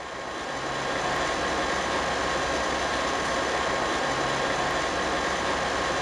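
A new refrigerator's strange noise: a loud, steady mechanical drone with a hiss and a held hum, swelling up over the first second.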